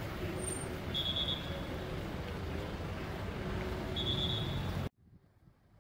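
Street traffic noise from cars driving around a roundabout: a steady low rumble with two short high beeps, about a second in and about four seconds in. The traffic sound cuts off abruptly about five seconds in, leaving only a faint background.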